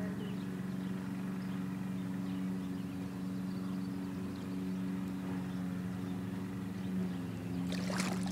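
A steady, low motor hum. Splashing in water starts near the end.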